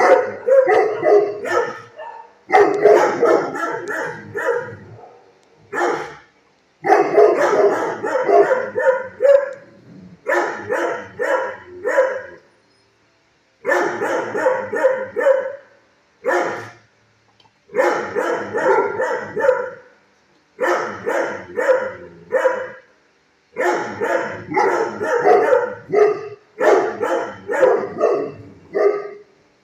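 Shelter kennel dogs barking in rapid runs of several barks each, with short pauses between runs.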